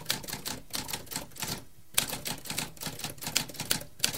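Typewriter keys clacking in quick runs, with a short pause about halfway through and a sharp strike as the typing resumes.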